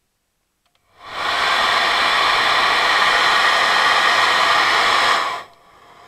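Small handheld hair dryer switched on about a second in, running with a loud steady rush of air and fan motor, then switched off about five seconds in and winding down. It is a test run after a bad contact at its thermal safety cutoff was fixed, and it now blows hot air.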